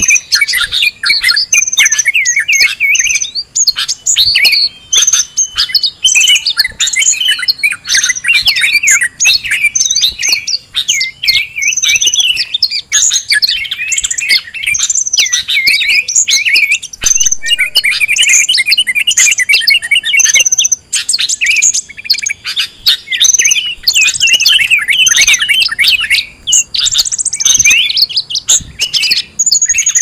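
A noisy chorus of many small songbirds chirping and trilling over one another with hardly a break. It is a mixed bird-lure recording (suara pikat burung ribut) used to draw in wild birds. A short, high piping note recurs every few seconds.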